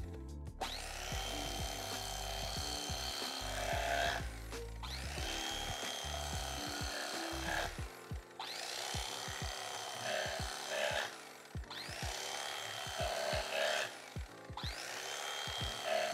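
Electric carving knife running in several bursts a few seconds long, its twin reciprocating blades sawing through smoked turkey breast, with a rising whine as the motor spins up at the start of each burst.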